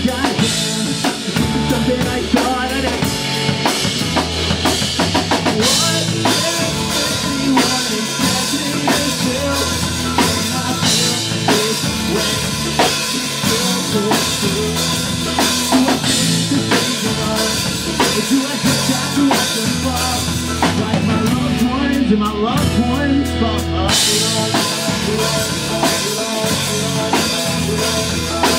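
Pop-punk band playing live: drum kit driving hard with bass drum and snare under electric guitars and bass. Near the end the cymbals drop out for a couple of seconds, then crash back in.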